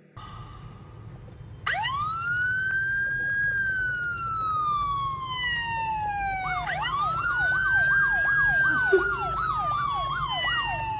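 Emergency-vehicle siren. About two seconds in it rises quickly, then falls slowly in a long wail. About two thirds of the way through it rises again, with a fast warbling yelp, about three sweeps a second, running over the second wail.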